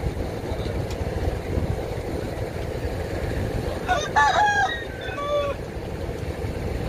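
A rooster crows once, starting about four seconds in, over a steady low rumble from fishing boat engines.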